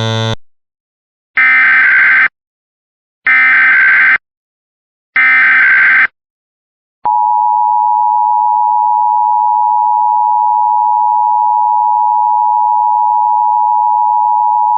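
Emergency Alert System SAME header: three bursts of warbling digital data tones, each about a second long with about a second between them. About a second later the steady two-tone EAS attention signal starts, holds for about eight seconds and cuts off sharply.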